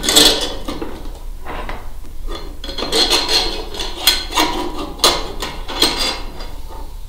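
Small metal hardware clinking and rattling as bolts are fitted by hand into a metal antenna mounting bracket, with several sharper clacks spread through.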